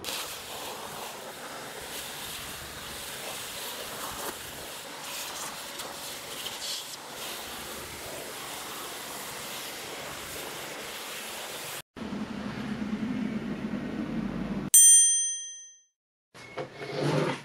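A vacuum cleaner running steadily as its nozzle sucks up dry sawdust from a workbench. It cuts off suddenly about 12 seconds in, followed by a low hum and then a single bright, bell-like ding that rings out and fades.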